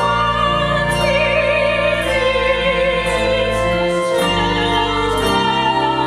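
Hymn played by a handbell choir with clarinets and cello, with voices singing over it in slow sustained notes with vibrato.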